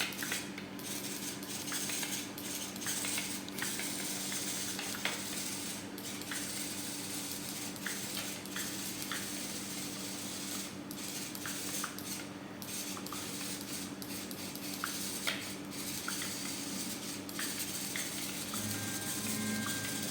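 Small remote-controlled robot being driven along its track: light scattered clicking and clattering of its wheels and parts, over a steady low hum and hiss.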